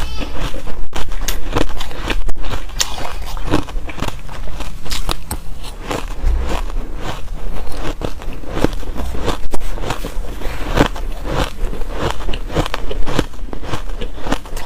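Hard ice being bitten and chewed, a dense run of loud, irregular crunches and cracks, several a second.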